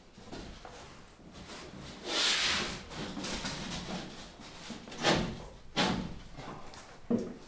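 A large wall panel being shifted and pressed into place for a test fit. About two seconds in, its edge gives a long scraping rub, followed by a few hollow knocks and bumps as it is pushed into position.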